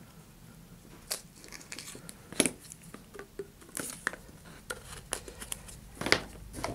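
Scattered faint clicks and taps as a small hobby knife cuts a sliver off a stick of two-part epoxy putty and the putty and tools are handled on a cutting mat.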